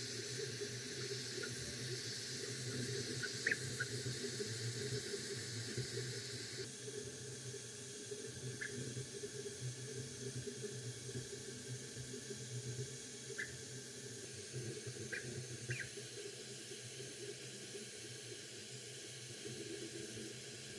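FLSun V400 delta 3D printer running a print: a steady hiss and hum from its cooling fans, with short high whirring chirps now and then from its stepper motors as the printhead moves.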